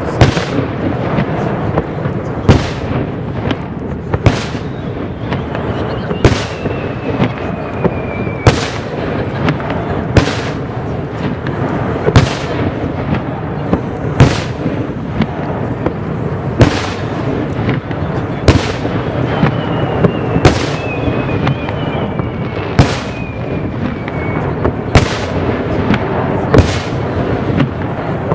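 Water-surface fireworks bursting with sharp bangs about every two seconds, over a steady rumble of wind buffeting the camera's built-in microphone. Twice, a faint whistle falls slowly in pitch between the bangs.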